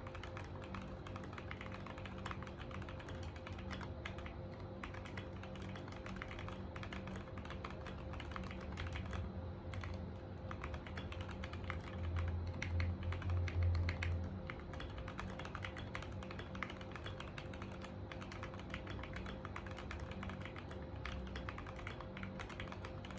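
Fast typing on a Keychron Q1 mechanical keyboard with an FR-4 plate and Tangerine linear switches: a dense, continuous run of key strokes. Background music plays underneath, swelling louder in the low end about halfway through.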